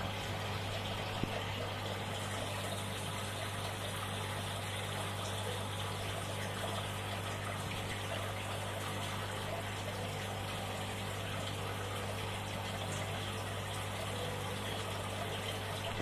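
Submerged aquarium filter running in a tub of water: a steady bubbling, splashing water sound over a constant low hum.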